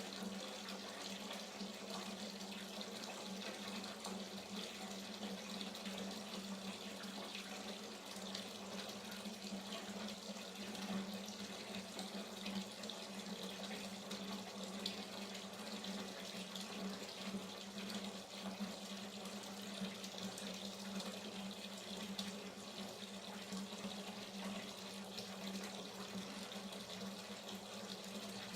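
Hot water running from a tap into a bathtub as it fills, a steady even splashing with a low hum in it.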